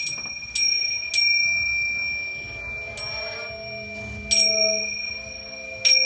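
Live experimental improvised music: six sharp, bell-like attacks at irregular intervals, each ringing on with high tones, over sustained lower held notes.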